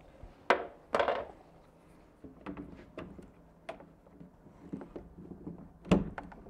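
Hard knocks and lighter taps of tools and hands on a PVC window sash as a new rubber weatherstrip gasket is fitted into its groove. Two sharp knocks about half a second apart come near the start, light clicks follow, and another hard knock comes near the end.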